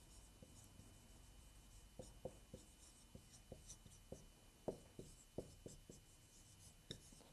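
Marker pen writing on a whiteboard: faint short strokes and taps of the pen tip as the letters are drawn, most of them from about two seconds in.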